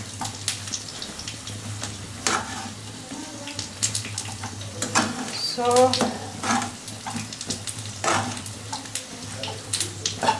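Sauce-coated fried chicken sizzling in a nonstick pan while it is tossed with steel tongs and a slotted spatula. The utensils click and scrape against the pan many times over a steady frying hiss. Near the middle there is one brief pitched sound, the loudest moment.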